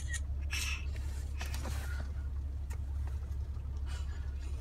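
A tiny dog sneezing a few times in short, sharp bursts over a steady low hum.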